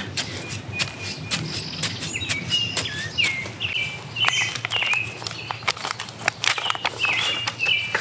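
Birds chirping in short, repeated calls with small downward slurs, over close clicks and crackles as hands work seedlings out of a plastic cell tray.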